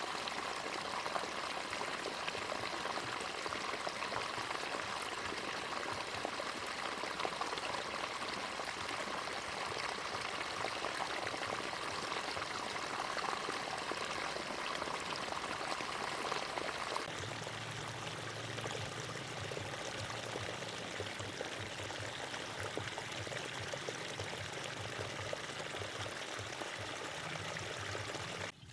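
Water flowing and pouring steadily through a field channel. About two-thirds of the way through, the sound changes abruptly and a low rumble joins the rush.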